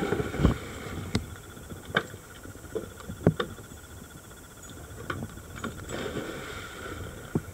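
Scuba divers splashing into the sea off the side of a small boat, one entry about half a second in and another around six seconds, with scattered sharp knocks of dive gear against the boat.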